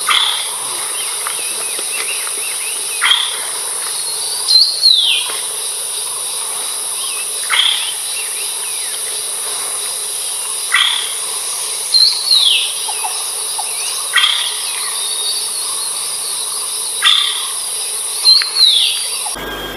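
Philippine trogon calling every few seconds, each call a quick downward slur, some clear and some louder and higher, over a steady high-pitched insect drone in the forest.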